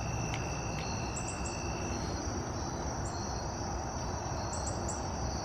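Crickets chirping: a steady high trill that drops out about two seconds in, with brief higher chirps in small groups of about three, over a steady low background hiss.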